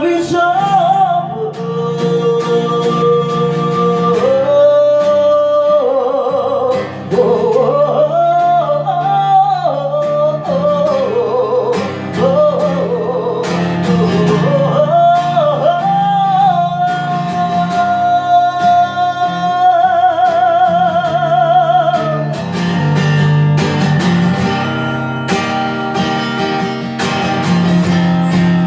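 A voice sings a flowing melody over strummed acoustic guitar, ending on a long held note with vibrato about twenty seconds in. The acoustic guitar then plays on alone.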